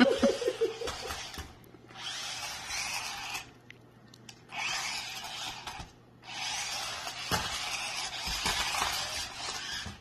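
Small electric drive motors and gears of a 4WD double-sided stunt RC car whirring in four bursts, a second or more each, as it is driven in short runs. There is a brief knock about seven seconds in.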